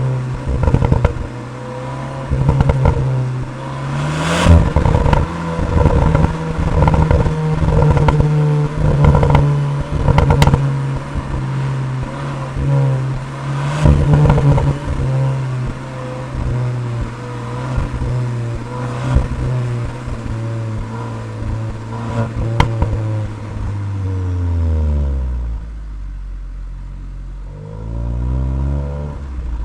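Cupra Leon ST VZ's 2.0 TSI turbocharged four-cylinder engine running at steady revs under way, with many short sharp cracks over it. Near the end the revs fall away, then briefly rise and drop again.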